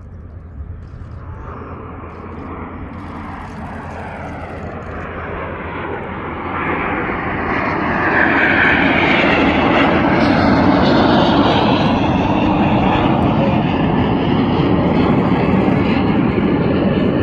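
Formation of CT-114 Tutor jets flying by, their turbojet engines' rushing noise growing louder over about eight seconds, then holding loud and steady.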